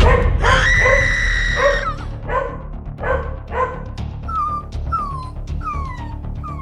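A frightened puppy crying over background music: first a long drawn-out yelp, then three short yips, then a run of four short whimpers that each fall in pitch.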